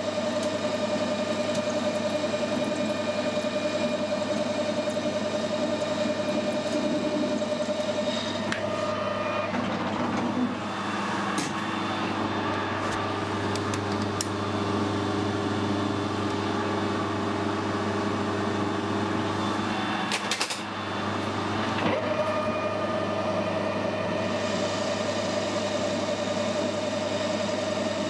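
Manual metal lathe running, turning down a bar with a single-point tool, with a steady whine. About nine seconds in the whine gives way to a lower hum and a few sharp clicks as the spindle is stopped and the work is measured. The whine of the lathe running and cutting returns a little after twenty seconds.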